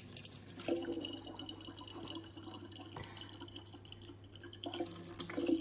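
Kitchen faucet running a thin stream of water into a plastic water bottle, trickling and dripping quietly.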